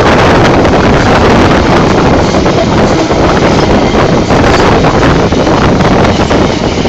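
Loud rushing wind buffeting the microphone over the steady running noise of a passenger sleeper train.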